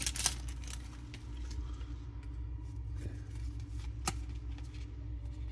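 Topps Series 1 baseball cards being slid and shuffled through the hands: soft scattered clicks and rustles, with a sharper click about four seconds in, over a low steady hum.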